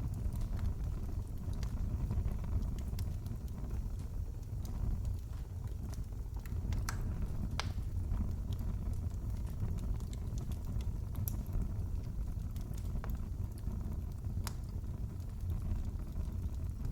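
Wood fire in a fireplace burning with a steady low rumble, broken by scattered sharp crackles and pops.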